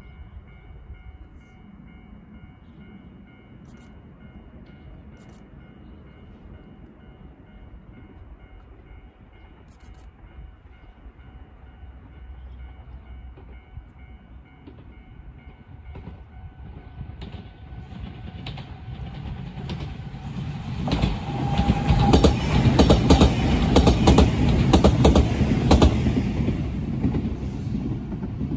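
An Enshu Railway 2000-series four-car electric train, two 2-car sets coupled, approaches and passes close by. Its rumble grows from about halfway in and is loudest near the end, with rapid wheel clacks over the rail joints, then starts to fade.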